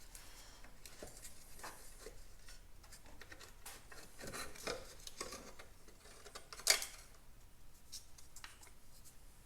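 Small metal parts and hand tools being handled and set down on a motorcycle: scattered light clicks and rubbing, with one sharper metallic click about two-thirds of the way through.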